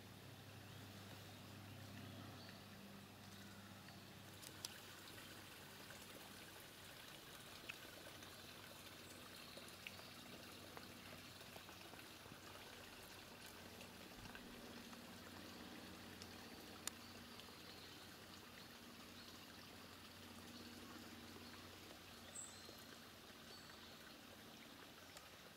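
Faint, steady trickling of a small woodland brook, with a few sharp clicks spread through.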